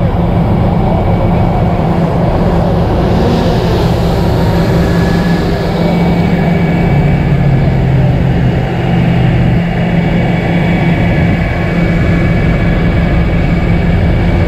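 Heavy rotator tow truck's diesel engine running steadily under load, powering the hydraulic boom while it lifts an overturned loaded tanker; its note shifts briefly around the middle.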